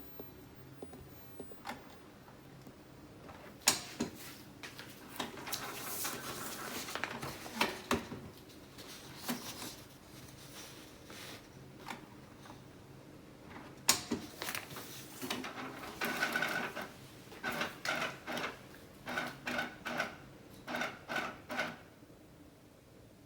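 Canon Pro9500 Mark II inkjet printer running an all-colour print-head cleaning cycle: its carriage and maintenance pump motors whirring in short runs, with a few sharp clicks, and near the end a string of short whining motor pulses about one every half second or so.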